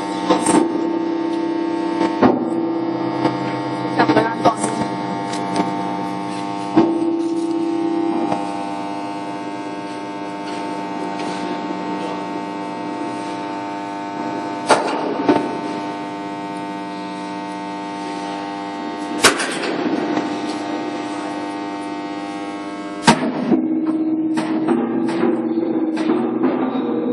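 Steady electric machine hum made of several held tones, shifting in pitch about eight seconds in and again near the end, with a few sharp metallic knocks scattered through it, the loudest near the end.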